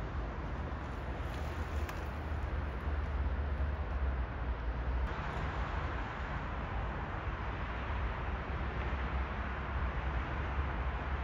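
Steady low rumble and hiss of distant city road traffic, getting a little brighter about five seconds in.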